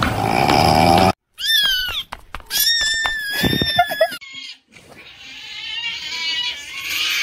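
A cat meowing: two drawn-out, high-pitched meows, the second held fairly steady, after a rasping noise that cuts off about a second in. Fainter wavering calls build up near the end.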